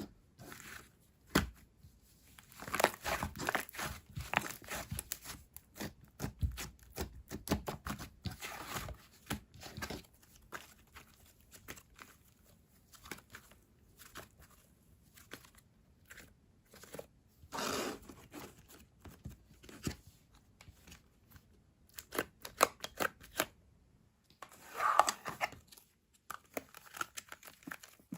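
Clay-and-clear slime being squished and stretched by hand, making irregular runs of small clicks and bubble pops, with a few louder squelches along the way.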